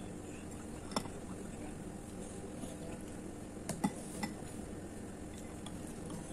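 Metal spoon and fork clinking against a ceramic bowl of noodle soup as they stir and scoop, a few sharp clinks: one about a second in and a quick cluster of three near the four-second mark.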